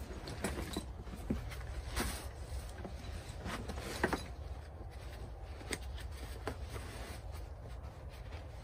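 Gear being packed by hand into a rucksack: rustling of nylon bags, with scattered light clicks and knocks.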